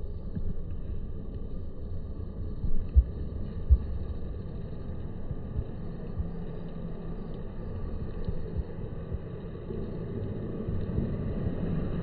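Low, steady background rumble, with two short thumps close together about three seconds in.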